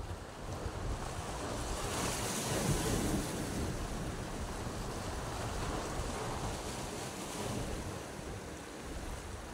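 Sea waves washing against the rocks of a breakwater, with wind buffeting the microphone. The wash swells about two seconds in and again, more softly, around six seconds in.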